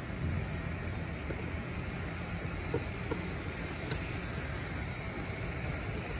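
Model train running along the layout track: a steady low rumble of wheels and motor, with a few faint clicks around the middle.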